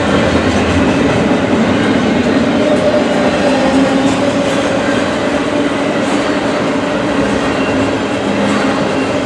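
Norfolk Southern freight cars rolling steadily past over the rails, a continuous loud rumble with wheel clatter and a faint wavering ring from the wheels.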